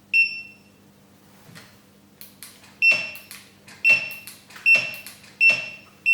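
Segway Ninebot F2 Pro electric scooter's dashboard buzzer giving loud, annoying beeps: six short high-pitched beeps, each starting with a click. The first comes right at the start, then after a pause five more follow about a second apart, the last held longer.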